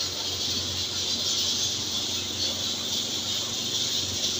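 Steady hiss of a gas stove burner's open flame, with a faint low hum beneath.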